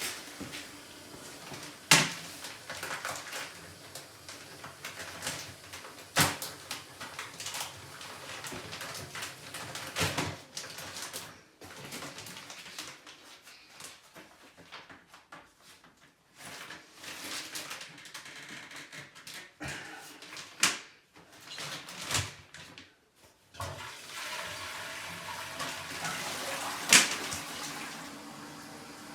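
Newly installed dual-flush toilet flushing and its cistern refilling, with water rushing and hissing. Several sharp clicks or knocks come through it.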